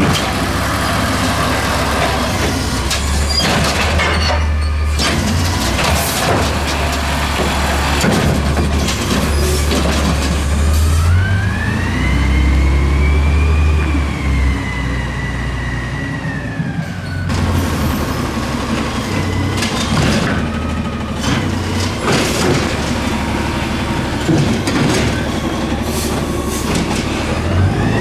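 Natural-gas Freightliner M2 garbage truck with an Amrep automated side-loader at work: engine running, with repeated clanks and knocks from the arm and the carts being lifted and emptied. About halfway through, a whine rises and then falls as the truck revs and moves on, and the clanking resumes later.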